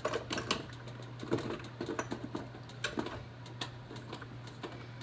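Irregular light clicks and knocks of kitchen containers and utensils being handled, a few each second, over a steady low hum.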